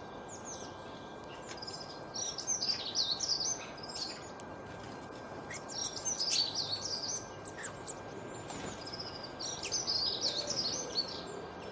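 A songbird singing in bursts of quick, warbling high-pitched phrases, repeated every few seconds over a steady background hiss.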